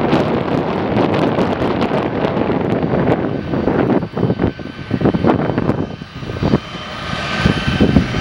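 Jet engines of a Boeing 757 airliner rolling along the runway, heard through heavy wind buffeting on the microphone. A steady high engine whine grows louder near the end.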